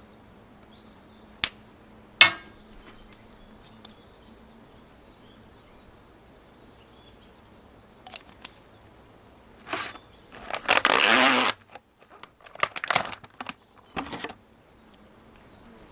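Handling noises: a few sharp clicks and knocks, then a rustle lasting about a second about two-thirds of the way through, followed by more short rustles and clicks.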